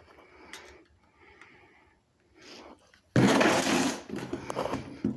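A small motor or power tool whirring loudly for under a second, about three seconds in, amid faint handling noises.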